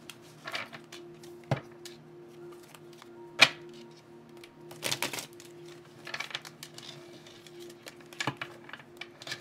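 A tarot deck being shuffled by hand: scattered card clicks and snaps, the sharpest about three and a half seconds in. Soft background music holds steady low notes underneath.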